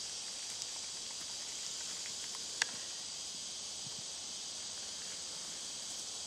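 Steady high-pitched chorus of insects in the summer woods, with one sharp click about two and a half seconds in.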